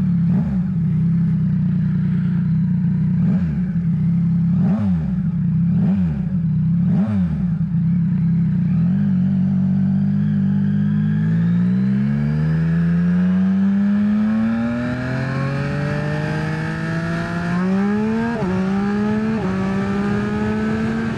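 2023 Yamaha XSR900's three-cylinder engine through an SC-Project exhaust, ridden at steady revs with a few brief dips, then accelerating with rising pitch and quick upshifts near the end. Wind rush grows as speed builds.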